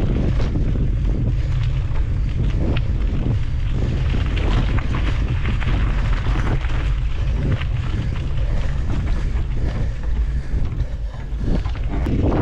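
Wind rumbling on the microphone of a moving mountain bike, with the tyres crackling over dry fallen leaves and gravel on the trail.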